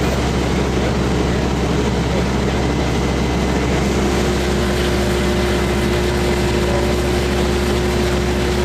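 A large engine running steadily at constant speed, with a steady hum and no change in pitch or load.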